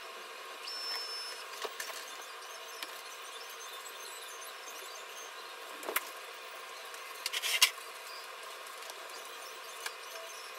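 Small clicks and taps of hair clips and pins being handled while curls are pinned on a practice mannequin head, over a steady room hiss. There is a sharper click about six seconds in and a quick run of clicks about seven seconds in.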